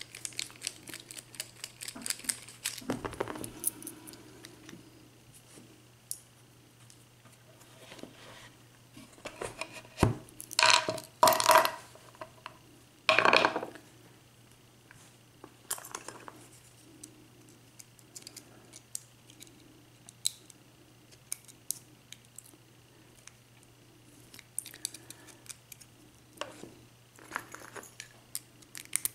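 Metal clicks, clinks and scrapes of a Master Lock ProSeries 6835 padlock being taken apart with small tools, with a few louder clacks about a third of the way in.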